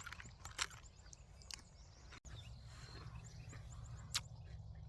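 Faint clicks and crunches of a spoon scooping cereal out of a cardboard cereal box, a few separate clicks with the sharpest about four seconds in, over a low steady outdoor background with faint bird chirps.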